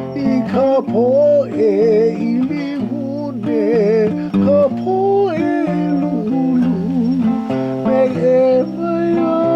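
A voice singing a slow Hawaiian hymn with wavering, held notes over strummed acoustic guitar.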